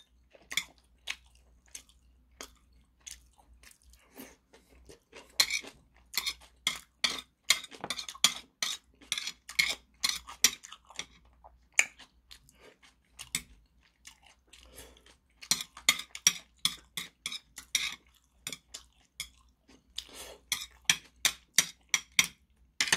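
A person chewing food close to the microphone, with many short wet smacks and clicks in irregular clusters. Metal chopsticks click against a plate now and then as they pick at the food.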